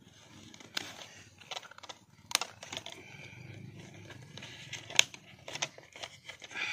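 A plastic water bottle and its electrical-tape wrapping being handled: a few sharp clicks and crinkles over faint rustling.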